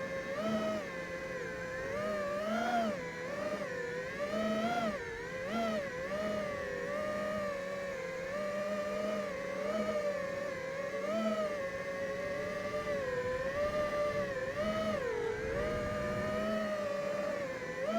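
FPV quadcopter's brushless motors and propellers whining in flight, the pitch rising and falling again and again in short swells.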